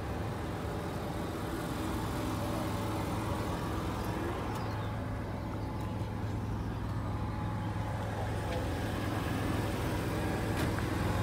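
A steady low engine hum with outdoor background noise, unchanging throughout.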